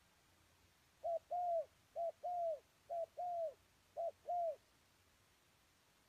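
Spotted dove cooing: four phrases about a second apart, each a short coo followed by a longer coo that falls away at its end.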